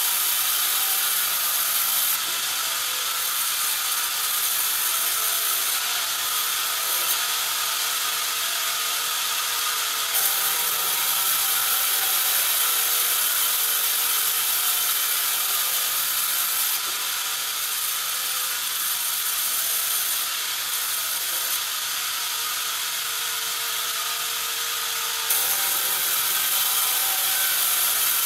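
Sawmill band saw cutting through a squared pine timber on its carriage: a steady high-pitched hiss and rasp of the blade in the wood, with the carriage mechanism running along. It grows a little louder and softer a few times.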